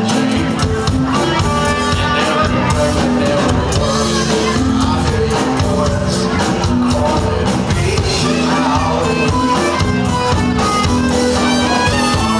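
Live band playing loud amplified dance music.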